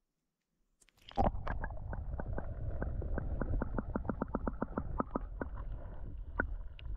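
A camera's microphone going under lake water about a second in: a sudden splash-like onset, then a muffled underwater rumble. Over it runs a quick series of sharp clicks, about six a second, which thin out near the end.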